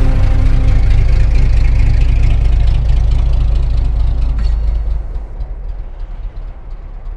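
Air-cooled flat-six of a classic Porsche 911 Carrera pulling away, a loud low exhaust rumble that fades from about five seconds in as the car drives off.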